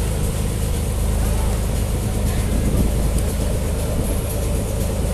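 Motorboat engine running steadily under way, a continuous low drone, with water rushing in the wake behind the stern.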